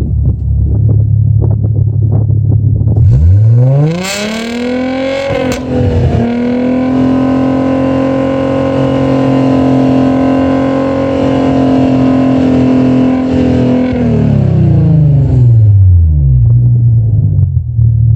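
Audi B8 S4's supercharged 3.0-litre V6 through its valved exhaust, idling with a low rumble, then revved up about three seconds in and held at high rpm for around eight seconds before the revs fall back to idle.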